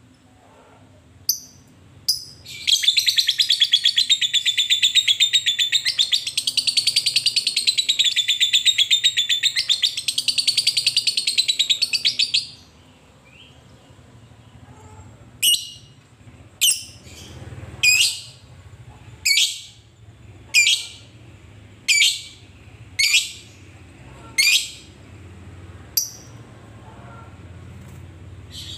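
Fischer's lovebird giving a long, rapid rattling chatter, the 'ngekek' that keepers prize, lasting about ten seconds after two short chirps. After a pause it gives a string of about nine sharp single chirps, a little over one a second.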